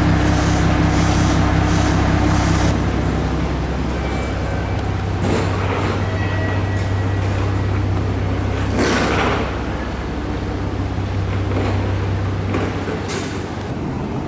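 Diesel railcar engines idling, a steady low hum with several steady tones, strongest in the first few seconds. A few brief hissing swells rise and fade over it.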